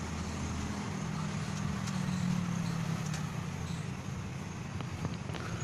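A low engine rumble, as from a motor vehicle nearby, that swells about two seconds in and then fades, over general outdoor background noise.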